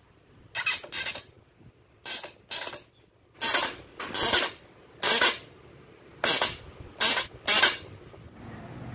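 A long black screw being driven into a wooden block in about ten short bursts, with pauses of under a second to about a second between them.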